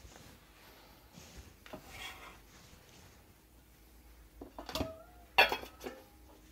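Faint rustle of chopped celery leaves being scraped off a wooden cutting board, then a stainless steel bowl clanking several times with a short metallic ring, the loudest knock about five and a half seconds in.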